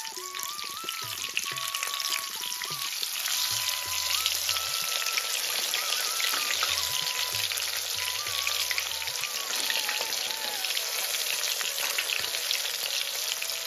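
Hot oil sizzling and crackling as masala-coated pieces deep-fry in a pot, getting louder over the first few seconds as more pieces go in. A soft background melody plays over it.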